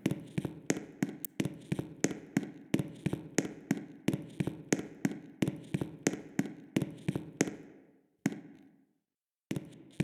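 Fire alarm bell striking about three times a second, each stroke ringing on briefly. It stops a little over seven seconds in, then strikes twice more on its own as it is shut off during the test.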